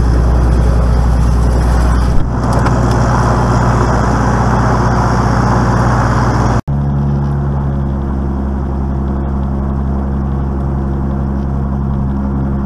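Velocity canard aircraft's pusher piston engine running steadily at taxi power, heard from inside the cockpit. The sound drops out for an instant a little past halfway, then the engine runs on slightly quieter.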